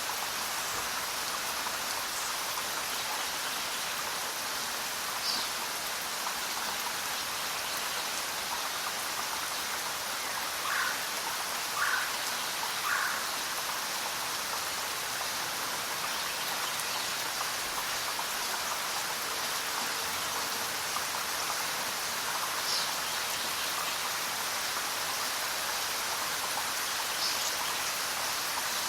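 Steady rain falling, with a few brief bird calls over it: a high chirp about five seconds in, three lower calls around the middle, and two more high chirps near the end.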